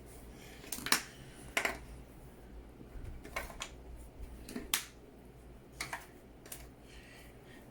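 Small plastic Play-Doh tools clicking and tapping against a tabletop: a handful of sharp, irregular clicks, the loudest about a second in.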